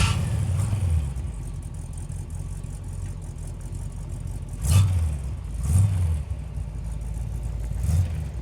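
A 1972 Corvette Stingray's V8 running with a low rumble, given a few short blips of throttle as the car is eased off a trailer.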